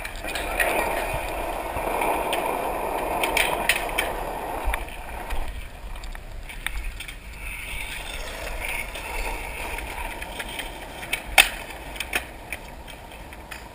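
Skateboard wheels rolling, louder for the first few seconds and then fading, with a few sharp clacks of the board; the two loudest come near the end.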